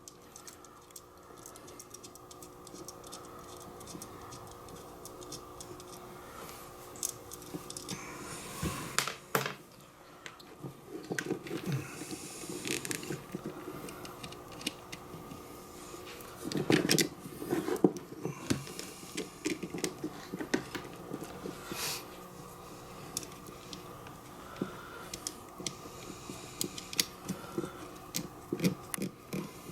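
Hands working small metal parts on a winch solenoid: irregular clicks, taps and short rattles of wire terminals, nuts and tools, with a steady faint hum underneath.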